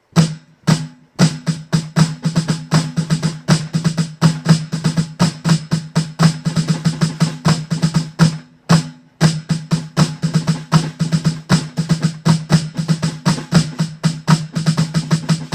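Snare drum played in a dense run of strokes, flams and flam drags with accented and unaccented notes: the first two measures of a snare solo's section B, played twice, with a short break about halfway through where the passage repeats.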